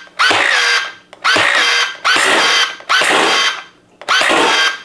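Spyra Go electric water gun firing five shots in quick succession, a little under a second apart. Each shot is a short motor whir of about half a second whose pitch rises as it starts, then holds.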